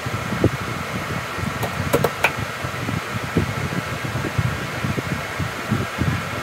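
Electric fan running with a steady whir and a low, uneven rumble. A few faint clicks come about two seconds in.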